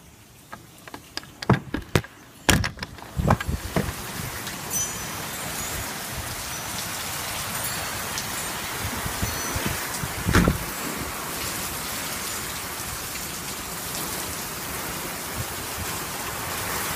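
Heavy rain pouring down steadily. A scatter of sharp knocks and clicks comes in the first few seconds, and there is a louder thump about ten seconds in.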